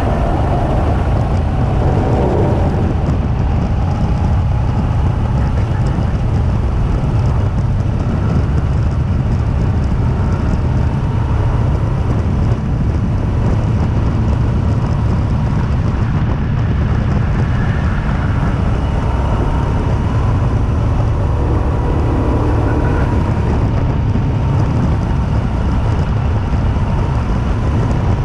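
Two-seater go-kart driving at speed: a loud, steady rush of wind buffeting the kart-mounted microphone, with the kart's motor whining faintly underneath, its pitch drifting slightly.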